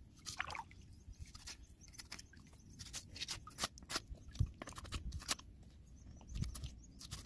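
Knife slicing through an alligator's belly hide and separating the skin from the flesh: irregular crackling, tearing snicks, several a second, with a couple of dull low thumps.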